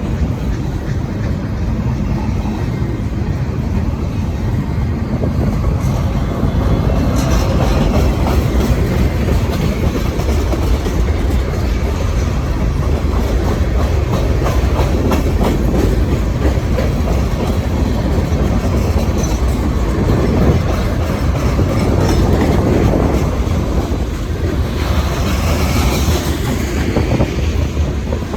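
Long freight train rolling past with a steady heavy rumble, its steel wheels clicking rhythmically over the rail joints. A brief high hiss rises near the end.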